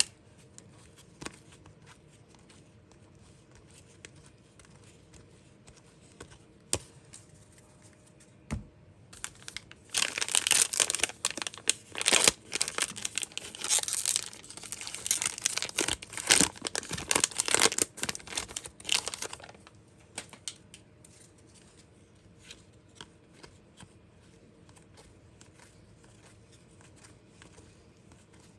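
Upper Deck Extended Series hockey card pack wrapper being torn open and crinkled, a dense rustling that runs for about ten seconds in the middle. Before and after it come a few faint clicks and ticks of cards being handled.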